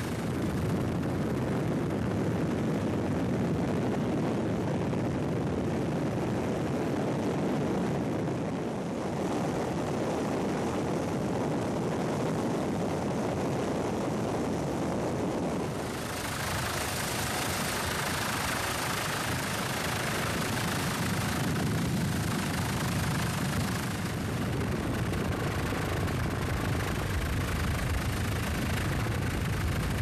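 Helicopter engine and rotor noise, a steady, dense drone with no breaks; about halfway through it turns brighter and hissier.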